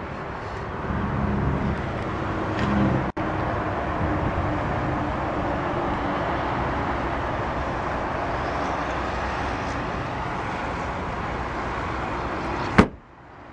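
Steady outdoor background noise, then the trunk lid of a 2011 Chevrolet Camaro SS Convertible is slammed shut near the end with one sharp bang.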